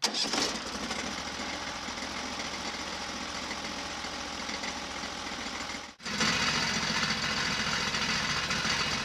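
Small gasoline engine of a portable bandsaw sawmill running steadily. It breaks off abruptly about six seconds in and starts again at once, heavier in the low end.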